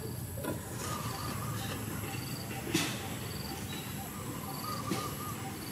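Outdoor ambience of insects chirping in short repeated bursts, with a fainter warbling call underneath. A brief sharp click about halfway through.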